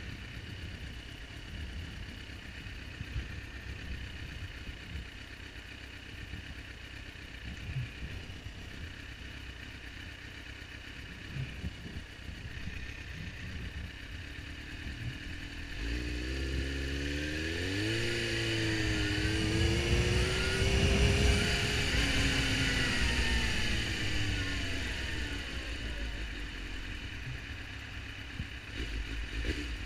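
Suzuki GSX-R750 inline-four motorcycle engine idling at a stop, then pulling away a little past halfway: the revs rise, dip briefly and rise again. It is loudest a few seconds later, then eases to a steadier run.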